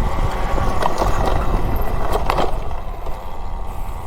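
A 72-volt Talaria Sting electric dirt bike being ridden on a dirt trail: a steady rumble of the tyres rolling over the ground, with a few short knocks and rattles from the bike.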